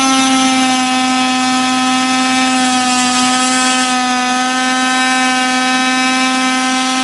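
Fein oscillating multi-tool with a round segment blade running at full speed and cutting into the drywall beside a wall opening: a loud, steady buzzing whine that holds one pitch.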